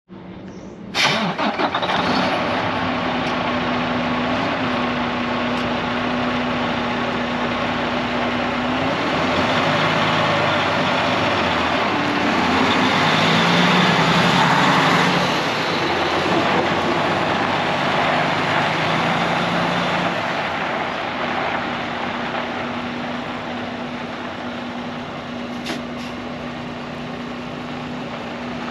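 Diesel engine of a 2018 Freightliner sleeper tractor idling steadily, loudest partway through as the sound comes from close beside the truck, then quieter.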